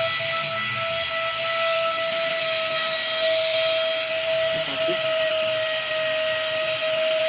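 Vention handheld car vacuum cleaner running steadily: a constant high motor whine over a rushing air hiss.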